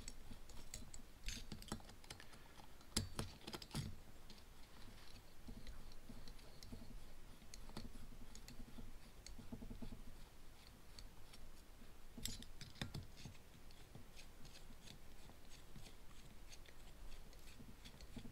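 Faint small metallic clicks and light scraping as steel screws are driven down into the aluminium cylinder head of a nitro RC engine with a hex driver. The clicks come in scattered clusters, the clearest about a second in, around three to four seconds in, and around twelve to thirteen seconds in.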